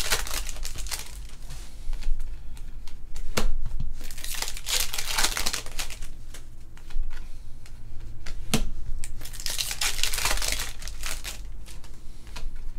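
Foil trading-card pack wrappers crinkling and tearing as packs are ripped open, in three bursts of crackle. A couple of sharp clicks fall between the bursts.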